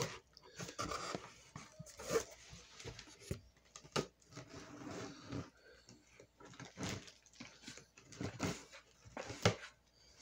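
Cardboard handling: a Priority Mail box is turned over and worked open, with irregular scrapes, rustles and sharp knocks of cardboard against cardboard.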